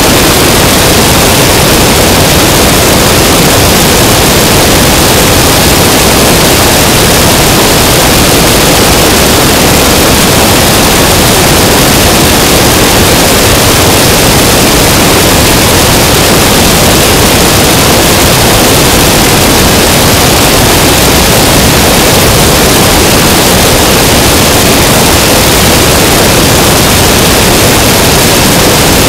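Loud, steady rush of slipstream wind and engine noise from an Aeronca Chief light plane in cruising flight, picked up by a camera mounted outside on the fuselage, so the wind noise buries any clear engine tone.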